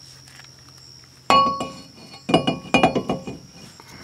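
Loose metal parts clinking and clanking as they are handled: one ringing clank about a second in, then a quick run of clinks about two seconds in.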